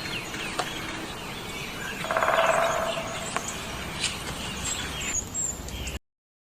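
Bird calls over outdoor background noise: a few short chirps, and about two seconds in a harsh, rapid, buzzy rattle lasting about a second. The sound cuts off abruptly about six seconds in.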